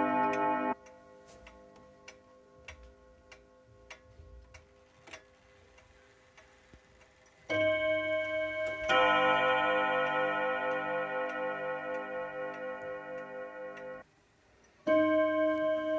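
Four-rod 'Mignon Gong' bim-bam strike of an F.M.S. Mauthe box clock. Faint ticking, then about seven and a half seconds in the rods are struck twice, a second and a half apart, in a rich, deep, many-toned chord that rings and slowly fades before breaking off. A new strike begins near the end.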